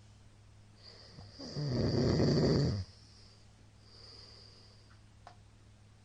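A middle-aged man snoring in his sleep. One loud snore lasts about a second and a half, then a much softer breath follows.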